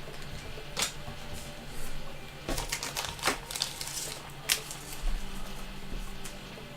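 Trading cards being handled and flipped through: scattered sharp slides and snaps of card stock, with a cluster of them in the middle.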